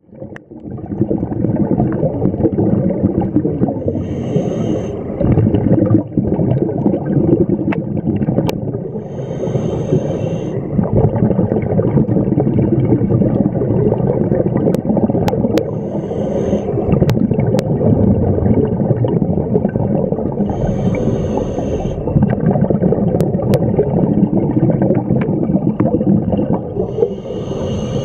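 Scuba breathing heard underwater through a camera housing: a steady, muffled rumble of water and bubbles, with a regulator hiss about every five or six seconds as a breath is drawn. A few faint sharp clicks sound in between.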